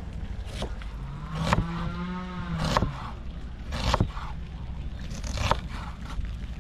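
A kitchen knife slicing an onion on a wooden cutting board, with five sharp chops about a second apart. Underneath is a steady low hum, and a low drawn-out tone rises and holds for about a second and a half starting a little over a second in.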